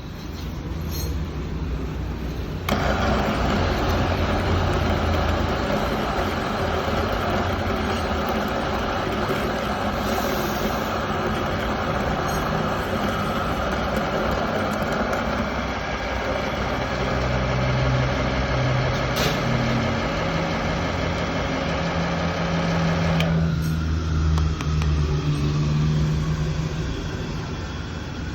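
Electric burr coffee grinder running. A loud, dense grinding noise starts abruptly about three seconds in and cuts off suddenly near the end, leaving a lower motor hum.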